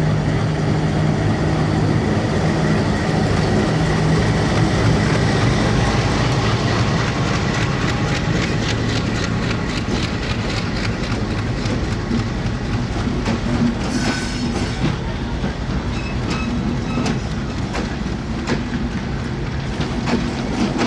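Passenger train running on the track, a steady rumble with its wheels clicking over the rail joints, the clacks growing frequent from about a third of the way in.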